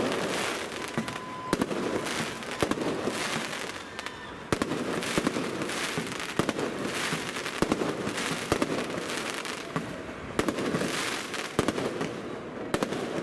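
Professional aerial fireworks display bursting close overhead: an irregular string of sharp bangs, several a second at times, over continuous crackling.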